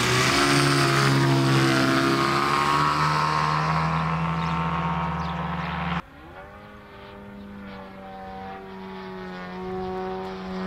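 Four-cylinder engine and propeller of a large-scale model aerobatic airplane running loud and close, its pitch rising a little. About six seconds in the sound cuts abruptly to the plane farther off: quieter, its engine pitch rising and falling as it flies.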